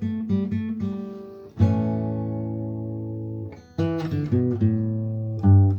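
Solo acoustic guitar music: quick picked notes and strummed chords, with one chord ringing for about two seconds and a louder strum near the end.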